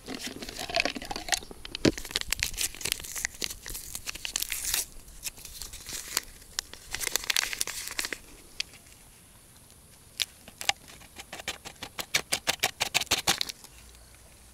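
Tearing and crinkling of a sachet being opened by hand, with plastic clicks from handling a hand pump sprayer bottle. Near the end there is a quick run of sharp clicks.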